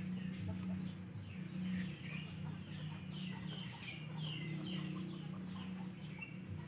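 Chickens calling in a run of short, falling calls, over a low steady hum.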